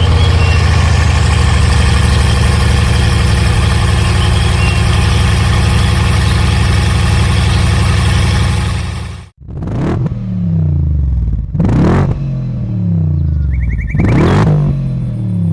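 Car engine sound, loud and steady for about nine seconds, then cut off abruptly. Three revs follow, each starting with a sharp burst and falling in pitch.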